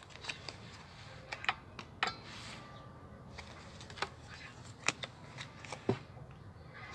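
Pokémon trading cards being flipped through in the hands and set down on a table: irregular sharp card snaps and taps with soft rustling between.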